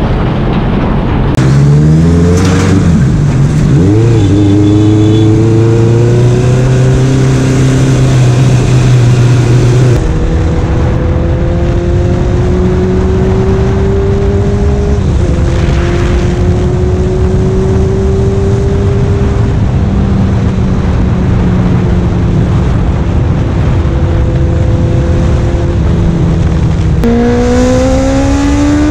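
Onboard sound of a Honda CBR1000RR-R's inline-four engine under acceleration, over steady wind rush. It climbs in pitch as it pulls away about two seconds in, then holds a steady drone that slowly rises and steps down once or twice at gear changes. It climbs again near the end.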